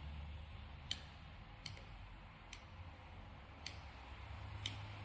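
Small screwdriver loosening the screws of a dimmer receiver's wire terminal block: five faint, sharp clicks about a second apart.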